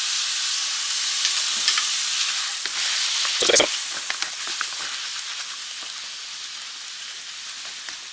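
Butter sizzling in a hot pan of sautéing tomatoes, spinach and red bell peppers, the sizzle fading as it settles. A single knock about three and a half seconds in.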